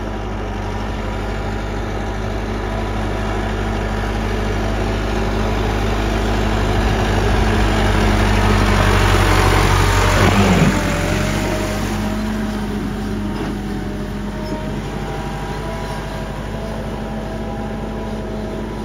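Massey Ferguson 385 tractor's diesel engine running steadily as it pulls a cultivator and levelling plank through a flooded, muddy field. The engine and the churning of the tyres in the mud grow louder as the tractor comes close, peaking about ten seconds in, then fade.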